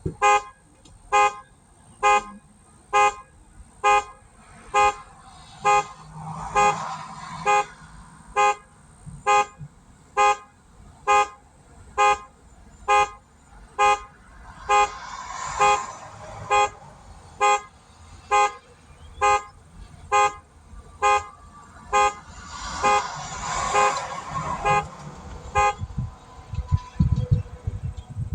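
2005 Chevy Trailblazer's horn honking steadily about once a second as its theft alarm, set off by the vehicle being entered with a lockout kit. The honking stops about 26 seconds in.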